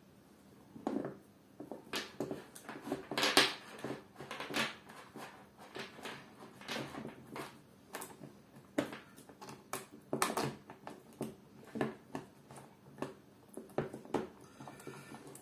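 Saw chain and guide bar of an AL-KO EKS 2000/35 electric chainsaw being fitted back on by hand: irregular metal clicks, rattles and knocks as the chain is looped around the drive sprocket and the bar is seated. The louder knocks come about three and ten seconds in.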